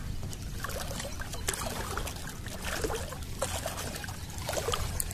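Shallow water splashing and sloshing in many short, irregular splashes as an angler wades and fights a hooked fish, over a low steady rumble.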